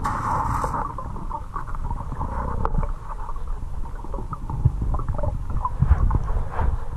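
Underwater river noise heard through a camera housing: a steady low rumble of moving water with many small clicks and ticks, and a brief hiss in the first second.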